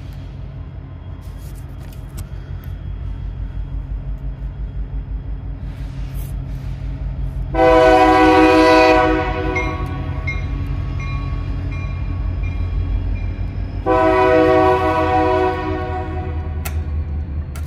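Locomotive horn sounding two long blasts about six seconds apart, each a chord of several tones, over the low rumble of the approaching train, which grows louder.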